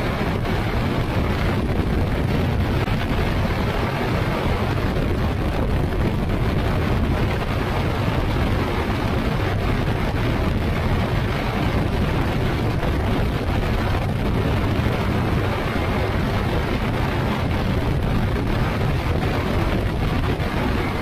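Ultralight trike in flight: its engine and pusher propeller running steadily, heard under heavy wind rush on the microphone.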